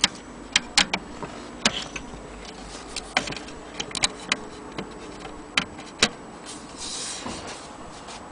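Irregular sharp clicks and knocks from hands handling a wooden mantel clock case, with a short rustling hiss about seven seconds in.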